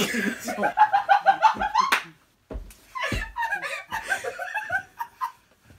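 People laughing: a run of quick, pulsing laughs for about two seconds, a brief pause, then more laughter mixed with a little talk.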